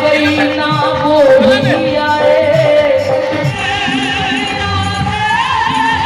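A Hindi devotional bhajan sung with musical accompaniment, the voice carrying a wavering melody line.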